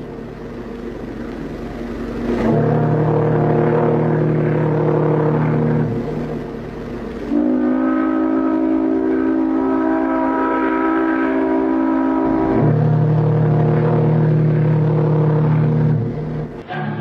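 Ocean liner whistles sounding long, loud blasts: a deep chord-like whistle, then a higher whistle of several notes held for about five seconds, then the deep whistle again.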